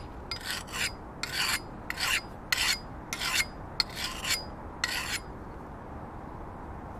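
Coarse sharpening stone rasping along one side of a hatchet's blade in repeated up-and-down strokes, about seven of them, each a short scrape, stopping about five seconds in.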